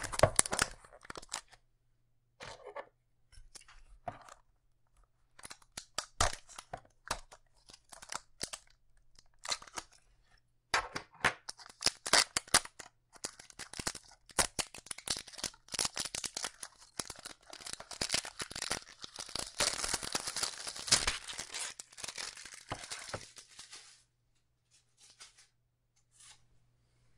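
Clear plastic shrink-wrap being torn and peeled off a small cardboard box by hand: scattered crackles and tearing sounds, then a long, dense stretch of crinkling from about eleven seconds in to about twenty-four.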